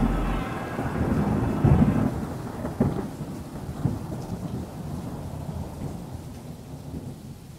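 Thunderstorm: steady rain with several low rumbles of thunder in the first four seconds, the whole fading out.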